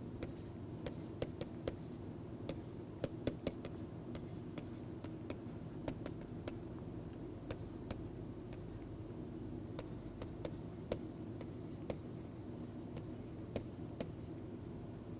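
Stylus tapping and clicking irregularly on a tablet screen while handwriting, over a steady low hum.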